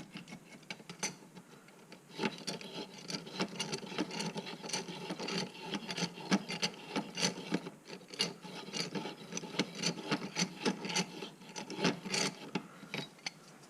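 Repeated irregular metal scraping and grating strokes, a few a second, on a rusty pipe wrench seized by fire heat. The strokes begin about two seconds in.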